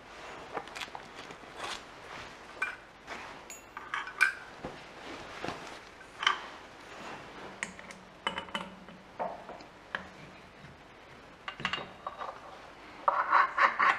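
Metal tools and parts being handled at a milling machine, not under power: scattered clinks and knocks, some ringing briefly, with a quick run of louder clinks near the end.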